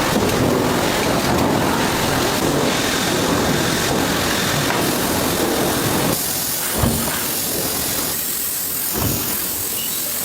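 Steady hissing and rumbling of factory machinery, easing a little about six seconds in, with two soft thumps near the end.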